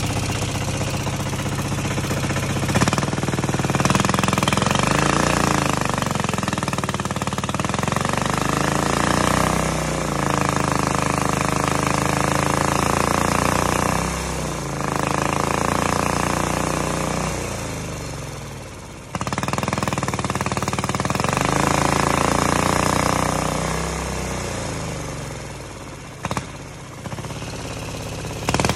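Turbocharged single-cylinder air-cooled diesel engine (168F type with an RHB31 turbo) being revved up and held several times, dropping back between, then settling down near the end. Revved with no load, the turbo makes almost no boost.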